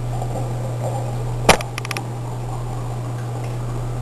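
Steady low hum, with one sharp click about a second and a half in and a few lighter clicks just after, from lab equipment being handled as the deionized water is picked up.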